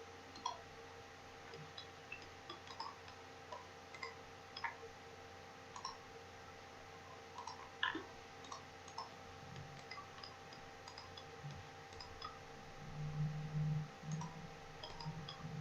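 Computer mouse clicking, irregular single clicks every half-second to second as edges are picked one by one, over a faint steady electrical hum. A louder low hum comes in during the last few seconds.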